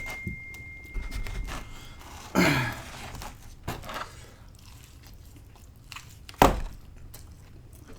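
A person chewing and biting into pizza, with small mouth and handling clicks. There is a short sound falling in pitch about two and a half seconds in, and one sharp knock about six and a half seconds in.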